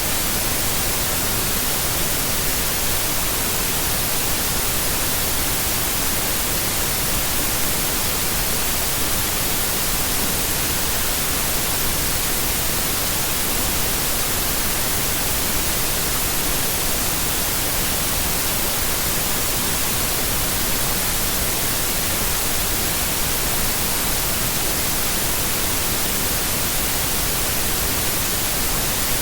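White noise switching on abruptly out of dead silence, then holding as a steady, even hiss.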